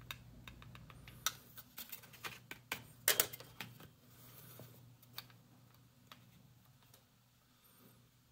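Flush cutters snipping the excess transistor leads off a soldered circuit board: a string of sharp clicks, the loudest about three seconds in, thinning out toward the end.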